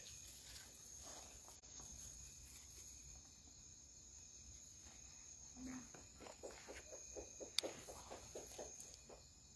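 Faint steady chirring of crickets at night, with soft footsteps scuffing over dry leaves and gravel in the second half.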